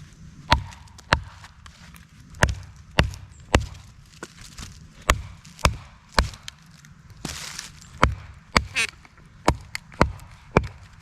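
Wooden baton knocking on the spine of a Becker BK2 fixed-blade knife to split wood (batoning): about fifteen sharp knocks, roughly one every half second, with a few short pauses and a brief rustle about seven seconds in.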